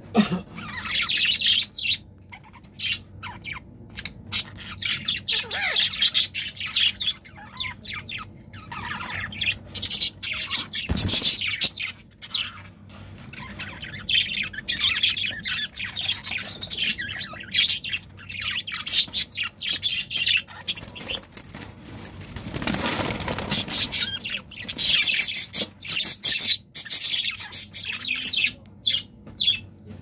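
Pet budgerigars chirping and chattering in a cage in quick, broken runs of high notes with short pauses. A short noisy flurry comes about two-thirds of the way through.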